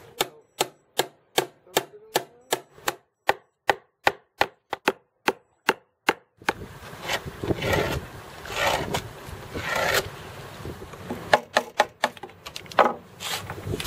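A hammer driving small nails into wood, even blows about three a second for the first six seconds. After that come rougher scraping sounds and a few sharp knocks on wood near the end, as a notch is cut into a wooden batten.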